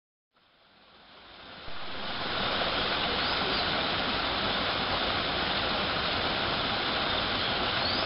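Small waterfalls splashing steadily over rocks, fading in from silence over the first two seconds.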